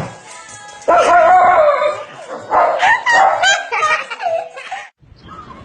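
A dog vocalizing loudly in wavering, pitch-bending cries that start about a second in and cut off abruptly near the end.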